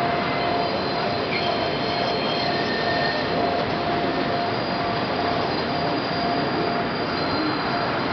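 R142 subway train moving slowly through curved yard track, its wheels squealing in thin steady tones that come and go over a steady rumble.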